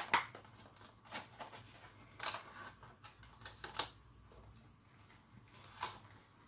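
Clear plastic transport box handled and worked open by hand: scattered clicks and crackles of the thin plastic, loudest right at the start and a little under four seconds in.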